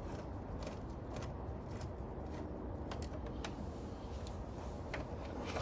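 Scattered light clicks and scrapes of a flathead screwdriver working the clamp on the air-intake tube at the throttle body, over a low steady hum.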